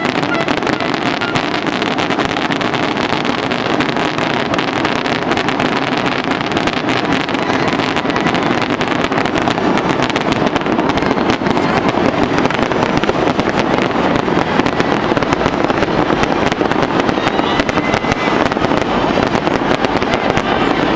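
Dense, unbroken barrage of aerial fireworks: rapid bursts and crackles running together into one continuous loud din.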